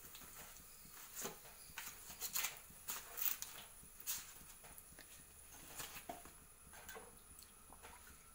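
Faint, scattered light taps and rustles as fried banana fritters are handled and set down on sheets of paper, with the odd knock of a metal slotted spoon.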